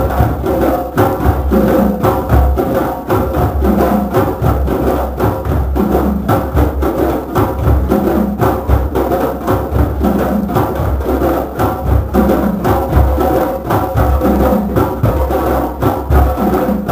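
A drum circle of many hand drums playing together in a dense, continuous rhythm, with deep bass strokes under quicker, sharper hits.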